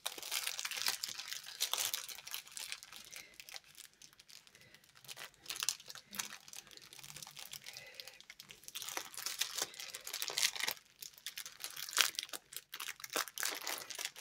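Clear plastic packaging crinkling and rustling as hands rummage in a bag of small bagged diamond-painting drill packets and pull them out, in irregular crackly spells with a short lull about four seconds in.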